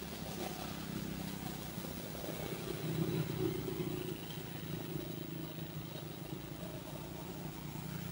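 A motor vehicle engine running steadily as a low hum, growing a little louder about three seconds in and then easing back.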